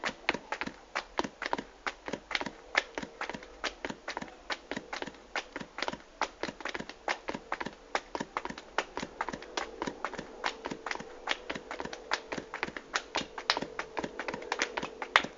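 A cat drumming its paws on a hard surface: quick, uneven light taps, about five a second, with a faint steady hum underneath.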